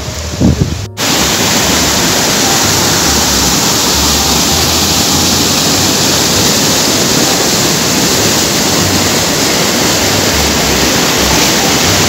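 Rushing whitewater of a rocky mountain stream pouring over boulders, a loud steady roar. It begins after a brief break about a second in.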